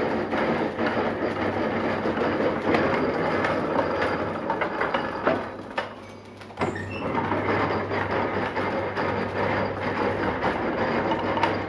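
Metal lathe running with a steady low hum and a rough machining noise. The noise drops away briefly about six seconds in, then picks up again.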